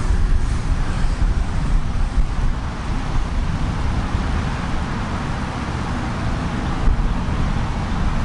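Wind buffeting an outdoor microphone: a steady, fluctuating rumble with a lighter hiss above it and no clear tones.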